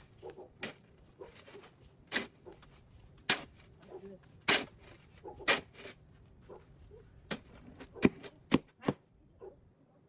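Snow shovel scraping and biting into snow in short, sharp strokes at an irregular pace of about one a second, with three quick strokes near the end.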